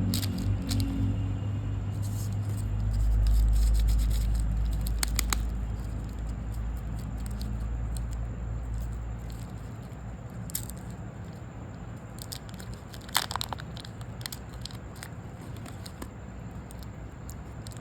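Scattered crisp crackles and clicks, with a louder cluster about thirteen seconds in, over a low rumble that fades away through the first half.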